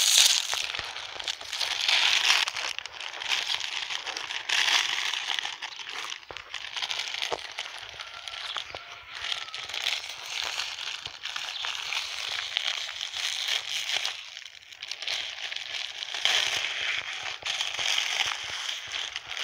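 Clear plastic gift wrap crinkling and rustling as it is pulled open and pushed aside by hand, in uneven surges with short lulls.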